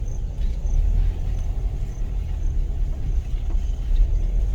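Car moving along a rough farm road, a steady low rumble of engine and tyres.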